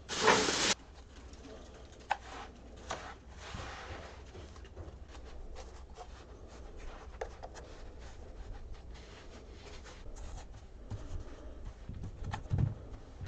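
Hands pressing and packing fine casting sand into a metal tin, with soft scratching and rustling and a few dull thumps near the end. A short loud rustle of a plastic bag at the very start.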